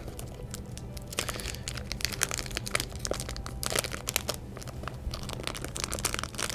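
Clear plastic bag and the paper wrapping inside it crinkling as they are handled and pulled open, with irregular crackles throughout.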